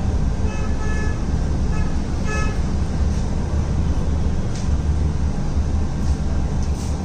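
Steady low rumble of background noise, with a few brief, faint high tones between about half a second and two and a half seconds in.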